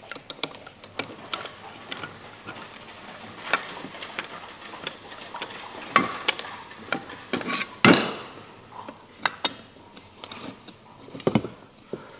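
Hand screwdriver working a Phillips screw out of a circular saw's metal base plate: small clicks and metal scraping as the blade bites and turns. A few louder metal clunks come about six and eight seconds in, the loudest near eight seconds, and another near the end.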